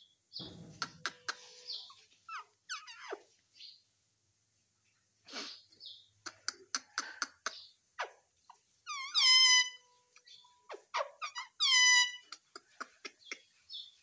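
Indian ringneck parakeet vocalising: scattered soft clicks and short chirps, then two loud, high calls with gliding pitch, one a little past the middle and one near the end.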